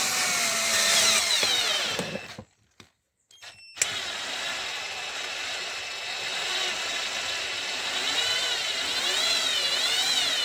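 Electric drill boring holes into an aluminium motorcycle clutch basket, its pitch wavering under load. It stops about two seconds in, gives a short blip, then starts again and drills on.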